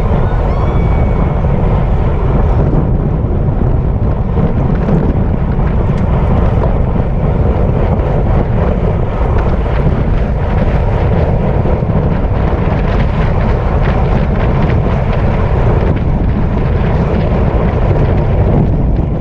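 Steady, heavy wind noise buffeting the microphone of a camera carried on a bicycle riding at speed.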